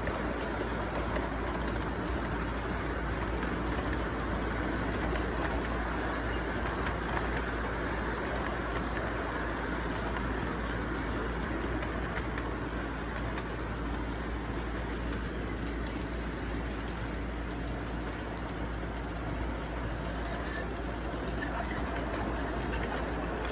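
Model train rolling past on its track: a steady, unbroken rumble of the cars' wheels on the rails, with a constant low hum underneath.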